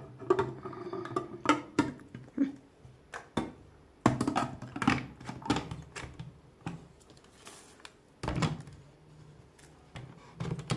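Hard plastic parts of a hand blender's food-processor grating attachment being fitted together by hand: a string of clicks, knocks and short scrapes as the lid, pusher tube and gear housing are seated on the glass bowl. The motor unit lands on the coupling with a thunk.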